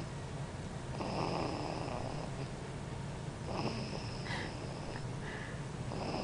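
A four-month-old baby snoring loudly in her sleep, in slow, regular breaths that swell about every two and a half seconds.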